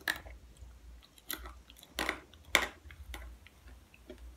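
A person chewing crunchy fried split peas (fried dhal): about five sharp crunches, the loudest about two and a half seconds in.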